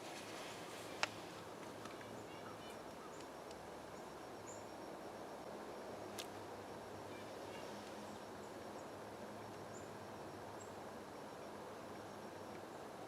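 Quiet woodland ambience: a steady hiss with faint, short, high bird chirps scattered through it. A sharp click about a second in, the loudest sound, and a smaller one around six seconds.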